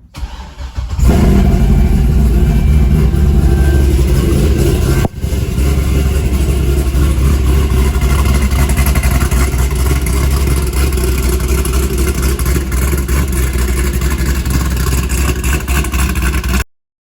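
C6 Corvette V8 starting and catching about a second in, then running steadily, with a momentary drop about five seconds in. The car starts and runs with the burnt fuel pump relay, which had left it cranking without starting, now fixed.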